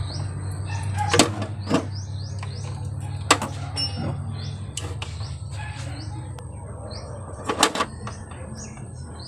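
Small birds chirping repeatedly in short downward-sliding chirps, over a steady low hum, with a few sharp clicks and knocks of objects being handled.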